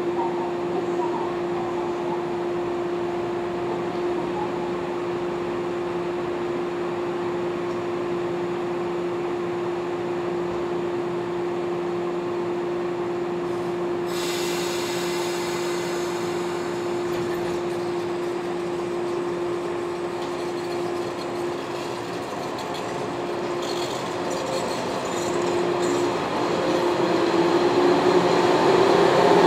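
JR West 113 series four-car electric train standing at the platform with a steady hum, with a hiss of a few seconds about halfway through. Near the end it pulls away: a whine rising in pitch and growing louder.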